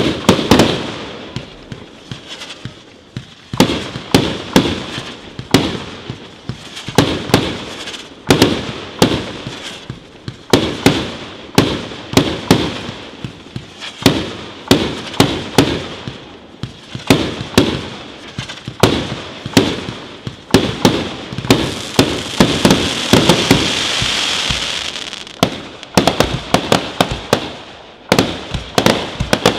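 Aerial fireworks display: shells bursting one after another in quick succession, sharp bangs with echoing tails, sometimes several a second. Near the end a few seconds of steady hiss run under the bangs.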